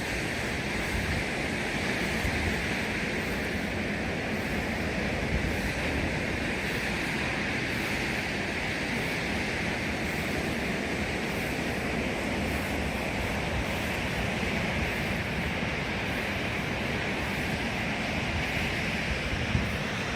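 Ocean surf washing on a beach at night: a steady, unbroken rush of breaking waves.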